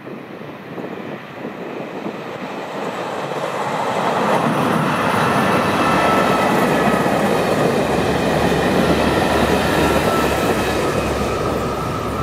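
Croatian Railways electric multiple unit approaching and passing close by, its wheels rumbling on the rails, growing louder over the first four seconds and staying loud as the coaches go past. A thin steady high tone runs through the loud part.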